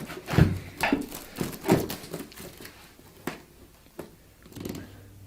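Cardboard packaging being handled and opened: a series of short knocks and scrapes, about half a dozen, coming thicker in the first two seconds and growing sparser and fainter toward the end.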